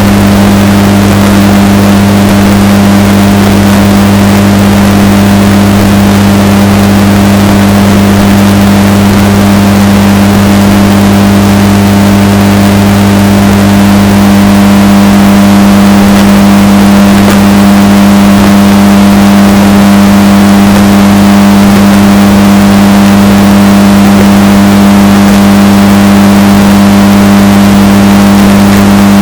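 Washing machine running, bass-boosted and distorted into a loud, steady low hum that does not change.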